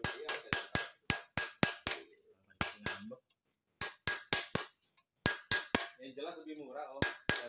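Hammer blows on a steel tool set against a cylinder liner in an Isuzu Panther diesel engine block: sharp metallic taps, about four a second, in bursts of three to eight with short pauses between. The work is turning around liners worn enough to make the engine burn oil. A faint voice comes in near the end.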